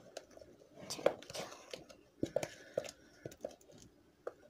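Fluffy slime being worked by hand in a thin plastic tub: a scatter of soft, irregular clicks and squishes as the slime and the tub's plastic are handled.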